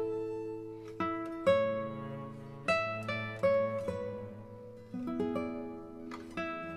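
Instrumental background music played on a plucked string instrument, notes and chords plucked and left to ring.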